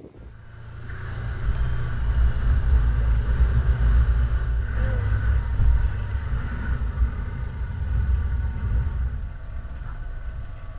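Side-by-side UTV engine running as it drives along a dirt track, a steady low rumble that builds over the first couple of seconds and eases a little near the end.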